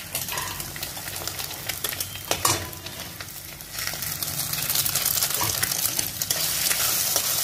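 Onion and tomato masala frying in oil in a kadai, with a few sharp knocks in the first half; a little past halfway a raw egg is cracked into the hot oil and the sizzle grows much louder and stays up.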